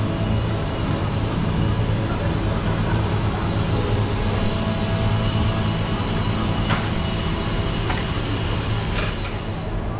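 Steady low engine hum of a vehicle, heard from on board, with a couple of faint clicks near the end.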